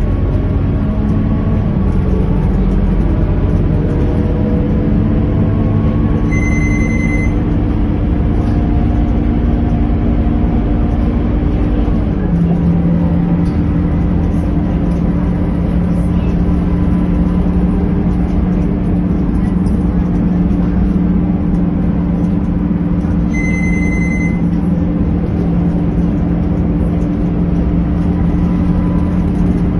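Scania K230UB bus's engine and drivetrain running while under way, heard from inside the passenger cabin. Its pitch steps several times over the first twelve seconds as the gears change, then holds steady. A short high beep sounds twice, about seven seconds in and again near twenty-four seconds.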